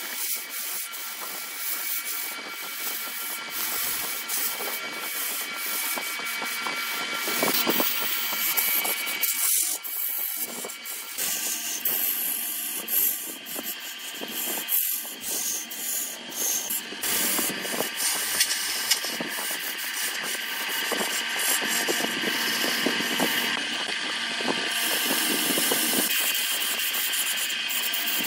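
Hand-held gouge cutting a spinning workpiece on a wood lathe: a steady, loud scraping hiss as shavings peel off, with many small ticks and a faint steady whine from the running lathe underneath.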